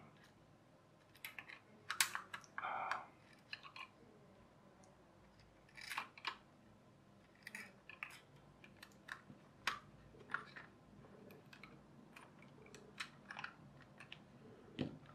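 Light, irregular clicks and taps of small plastic parts and steel needle-nose pliers being handled while a spring is worked into a plastic toy gearbox housing, with a slightly louder knock near the end.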